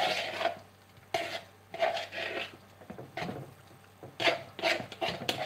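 Metal spoon stirring crab meat and king prawns into sweet chilli sauce in a plastic mixing bowl, in repeated short strokes.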